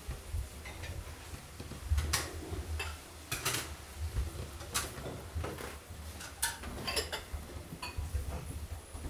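Scattered light clicks and knocks, the sharpest about two, three and a half, five and six and a half seconds in, over a steady low hum.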